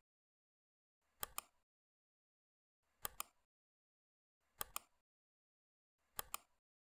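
Computer mouse button clicking four times, each a quick double click of press and release, about one and a half seconds apart.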